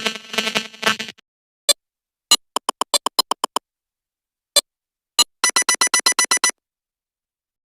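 Nothing Phone (1) stock ringtone: short, clipped electronic tones. A brief chord-like burst comes first, then single blips and two quick runs of beeps at about ten a second, in a sparse, stuttering pattern.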